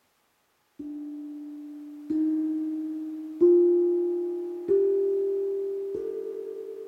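Tank drum (steel tongue drum tuned to D phrygian) struck with a soft mallet: five single notes about a second and a quarter apart, climbing the scale one step at a time, each ringing on and fading slowly.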